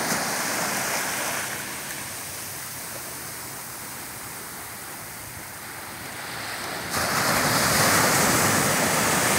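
Small ocean waves breaking and washing up at the shoreline, a steady rush of surf. It eases off after a second or so, then turns suddenly louder about seven seconds in as a wave breaks close by.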